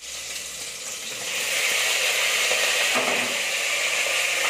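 Chopped vegetables frying in hot oil in a pressure cooker pot: a steady sizzle that grows louder about a second in, as they are stirred with a wooden spatula.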